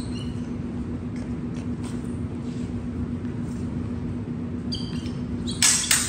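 Steel training longswords clash near the end, a quick series of sharp blade-on-blade strikes with a high metallic ring, over a steady low hum.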